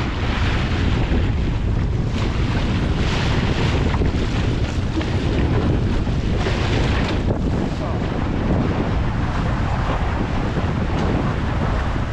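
Wind buffeting the microphone with a steady low rumble, over water rushing and splashing along the hull of a small wooden sailing boat under way in choppy water. Brighter splashes come every second or two.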